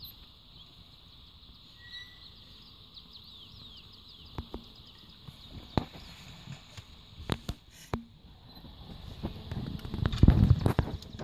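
Outdoor riverside ambience with many short, high chirps falling in pitch, a few sharp knocks, and a loud low rush of noise near the end.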